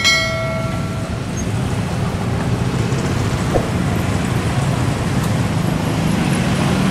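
Road traffic of cars and motorbikes running past a railway level crossing: a steady rumble with a low engine hum that grows a little stronger toward the end. A ringing tone fades out in the first second.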